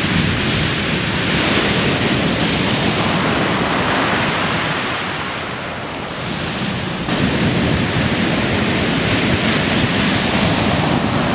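Heavy storm surf breaking continuously onto a shingle beach: a steady loud wash of waves and foam, easing slightly midway before building again.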